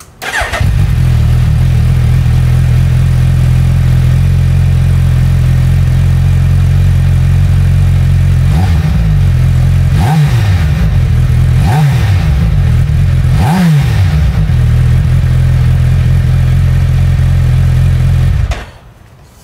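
2021 Suzuki Hayabusa's inline-four engine idling through an Akrapovic slip-on muffler with its baffle fitted. Four short throttle blips in the middle rise and fall in pitch, then the idle resumes. The sound cuts off near the end.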